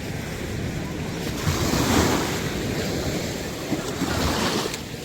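Steady wash of sea waves with wind buffeting the microphone.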